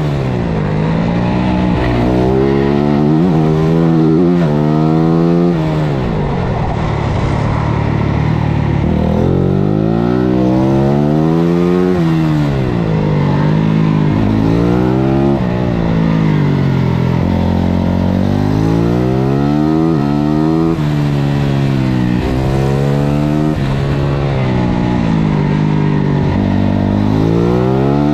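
Onboard sound of a 450cc single-cylinder four-stroke supermoto race bike at racing pace: the engine revs climb in steps through gear changes on the straights and drop back under braking into corners, over and over, with wind rush.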